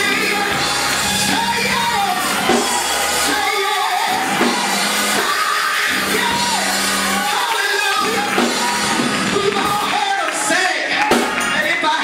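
Gospel church music: a woman singing and shouting into a microphone over sustained organ chords and drums, with sharper drum hits near the end. The hall is amplified and reverberant.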